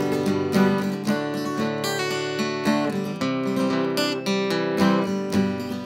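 Steel-string acoustic guitar being strummed, chords ringing with a steady rhythm of about two strokes a second.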